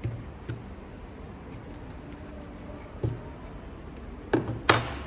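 A few short clicks and knocks of hard objects being handled, five in all, the loudest two close together near the end, over a low steady hum.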